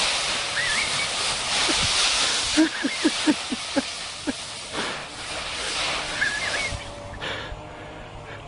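Dry autumn leaves rustling and crunching as a dog burrows through a large leaf pile, loudest in the first five seconds and then quieter.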